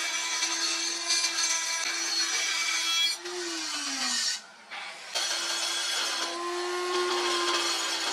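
A die grinder with a pink mounted grinding stone grinds the steel of a cleaver blade: a steady motor whine over a harsh grinding hiss. About three seconds in, the grinding stops and the whine falls in pitch as the grinder winds down. It starts up and grinds again about five seconds in.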